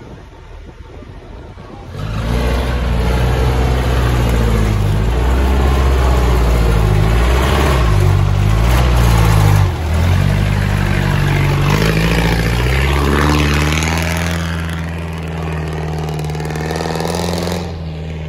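An off-road 4x4's engine revving hard under load as it drives through a deep muddy water hole. It comes in loudly about two seconds in, its pitch rising and falling several times, then settles and drops away near the end.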